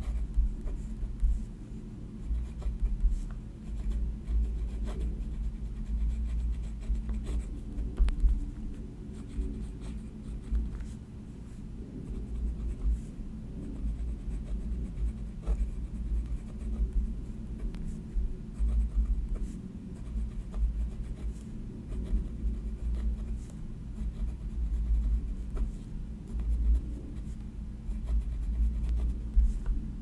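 Pen writing on grid notebook paper, a continuous light scratching of the tip across the page that rises and falls as words are formed, with brief pauses between them.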